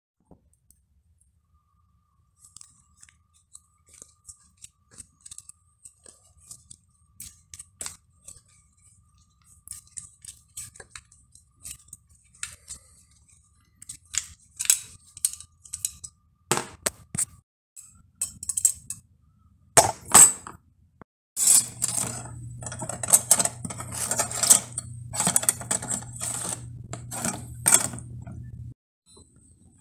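Light metallic clinks and scrapes of hand tools and loose parts against a bicycle crankset's steel chainrings and chainring bolts. The clinks are sparse at first and come thick and fast about two-thirds of the way in, with a low steady hum under them.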